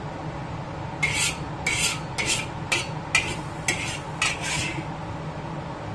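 Metal spatula scraping a wok in about eight quick strokes through the middle of the stretch, sweeping the last of the stir-fried water spinach out onto a plate.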